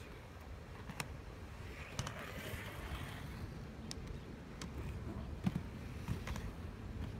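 Inline skate wheels rolling on a concrete court with a low rumble. A handful of sharp clicks and knocks come from the skates striking and turning on the ground, and there is a brief scraping hiss a couple of seconds in.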